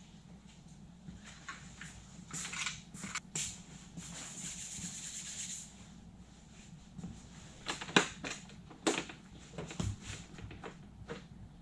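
Handling and working noises: scattered clicks and knocks, a couple of seconds of rubbing or scraping noise, then two sharp knocks about a second apart, over a low steady hum.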